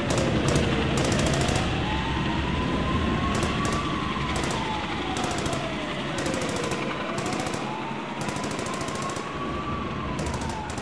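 A siren wailing slowly up and down, taking about six seconds for each fall and rise, over a dense rumble, with repeated short bursts of rapid rattling.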